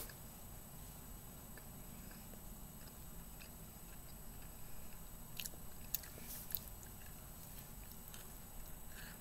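Faint chewing of a caramel stroopwafel, with a few short mouth clicks about halfway through.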